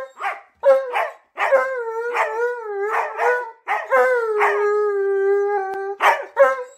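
An Alaskan Malamute and a Siberian husky howling together: a run of short rising-and-falling calls, one long howl starting about four seconds in, then quick yips near the end.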